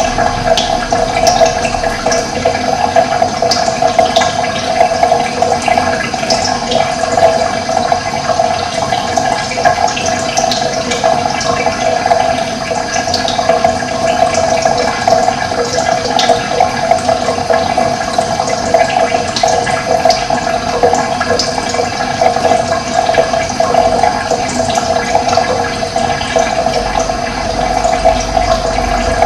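Running water rushing steadily, with short high bird chirps now and then.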